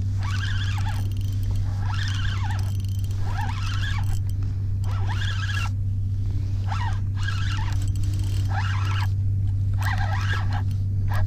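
Spinning reel being cranked against a hooked sea bass: a squeaky whir that rises and falls with each turn of the handle, about once a second, over a steady low hum.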